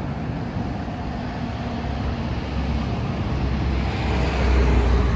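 Road traffic noise, a steady rumble from passing vehicles, swelling louder about four seconds in as a vehicle goes by.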